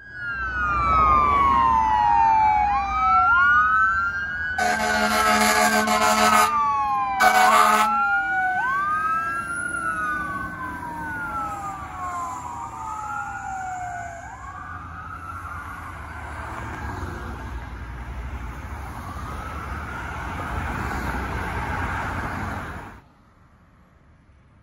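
Fire truck siren wailing in repeated falling sweeps, each snapping back up to a high pitch. A long horn blast comes about five seconds in and a short one a second later. The siren grows fainter as the truck moves off, then cuts off abruptly near the end.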